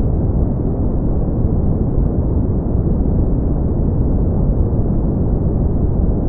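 Steady brown noise: an even, deep rushing hiss with no changes.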